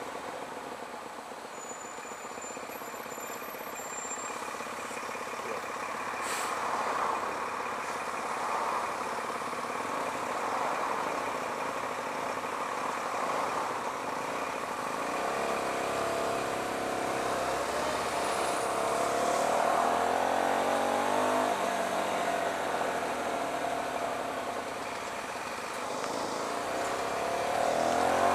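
Hyosung GT125R's 125 cc V-twin engine running at low road speed, with wind noise on the microphone. The engine note slowly rises and falls with the throttle and picks up again near the end.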